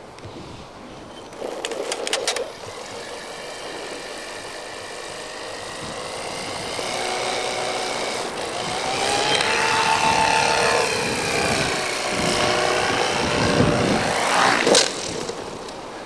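Multiplex FunCopter model helicopter's electric motor and rotor whining as it spins up and flies, the pitch rising and falling with the throttle. Near the end comes a sharp knock as it lands hard, and the whine dies away.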